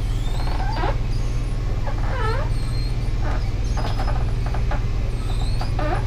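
Motorhome slide-out rooms running outward: a steady low mechanical hum, with short squeaky whines that bend up and down over it a few times.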